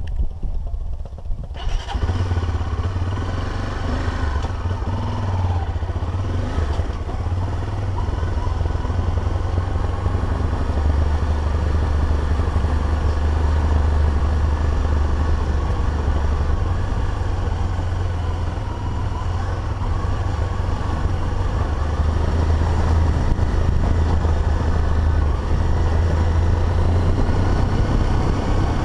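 Single-cylinder dual-sport motorcycle running steadily while being ridden along a dirt road, heard from the bike itself. The engine comes up strongly about two seconds in and holds an even note, under a steady rush of road and wind noise.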